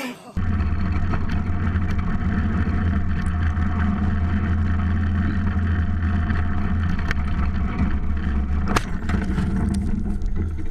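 Small engine of an open roll-cage off-road buggy running steadily while it is driven. About nine seconds in, a cluster of sharp knocks as the buggy tips over.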